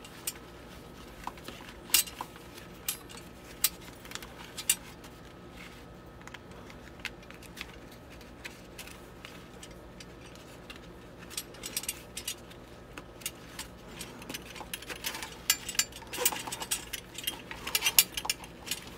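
Scattered light metallic clicks and clinks of scuba harness hardware knocking against a metal backplate as the webbing is threaded through the plate's slots and pulled tight. The clicks come closer together in the last few seconds.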